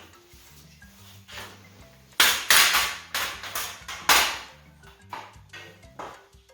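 A run of loud, sharp metallic bangs as a badly bent aluminium mountain-bike rim is forced straight. About five strong bangs come in quick succession from about two seconds in, followed by three softer ones. Background music plays throughout.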